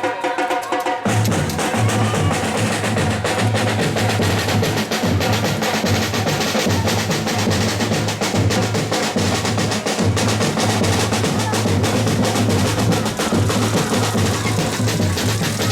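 Music with fast, dense drumming: a quick run of drum and percussion hits over a deep, pulsing beat.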